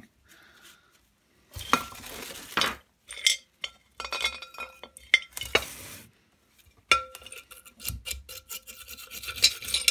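Small rusty steel parts clinking and scraping against a glass bowl and each other as they are scrubbed with a brush in paraffin. It starts after a short quiet, comes in bursts with a brief pause, then turns into a busy run of quick clinks and scrubbing in the second half.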